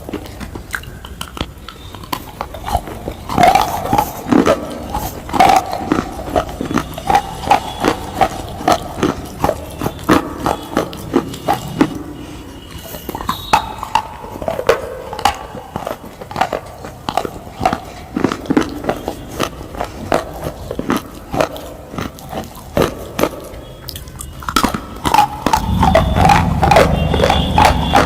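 Loud, rapid crunching and chewing: many crisp crunches in an irregular run, as of something brittle being bitten and chewed. A low rumble joins near the end.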